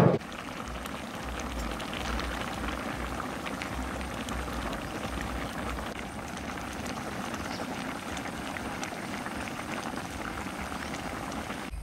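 Braised pork leg bubbling steadily in its sauce in a large wok, a constant simmering crackle of bursting bubbles. A brief loud thump comes right at the start.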